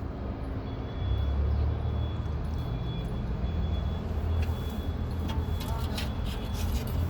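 Street traffic: a steady low rumble of passing vehicles, with a few clicks in the second half.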